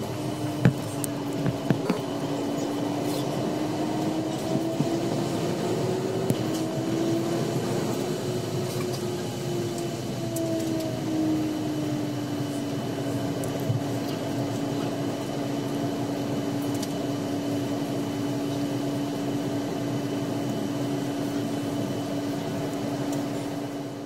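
Airliner cabin noise while taxiing after landing: the steady hum of the jet engines at idle with cabin air, and a drone whose pitch wavers up and down for about the first twelve seconds, then holds steady. A few light clicks near the start.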